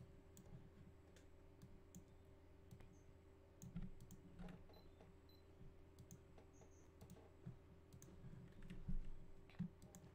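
Faint, scattered clicks of a computer mouse and keyboard shortcuts being pressed, over a quiet steady low hum.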